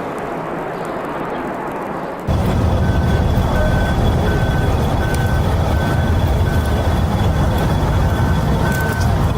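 A rushing noise cuts abruptly, about two seconds in, to a loud low rumble. Over the rumble an electronic warning beeper sounds a short beep about every 0.7 s, in the manner of a vehicle's reversing alarm.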